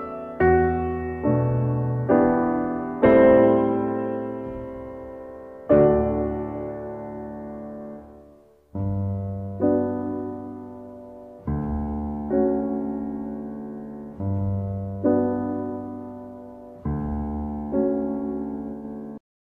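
Background piano music: slow chords, each struck and left to fade, stopping suddenly near the end.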